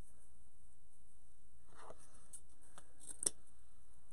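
Ribbon rustling as it is handled, then a few small clicks and one sharp snip of scissors cutting off a ribbon end about three seconds in.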